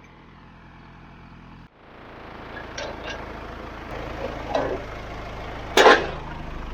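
Farm machinery engine running steadily, with a few short knocks and one loud, brief burst of noise near the end.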